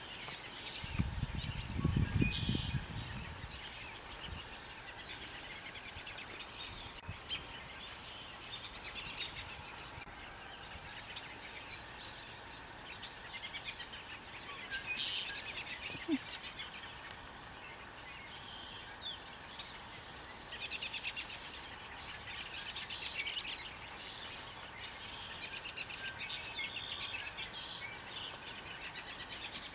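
Small birds chirping and twittering on and off throughout, over faint outdoor background noise. A brief low rumble comes about one to three seconds in.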